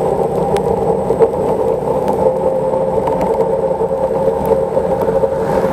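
Xiaomi Mijia M365 electric scooter riding at about 20–25 km/h on a wet street: a steady whirring hum from the motor and tyres, with a few small rattling clicks.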